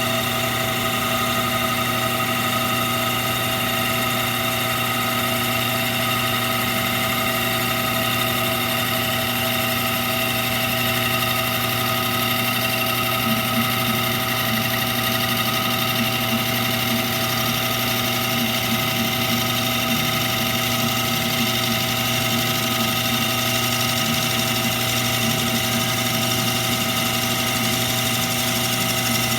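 Metal lathe running steadily while turning down a red oak bar, a constant machine hum and whine with a hiss over it.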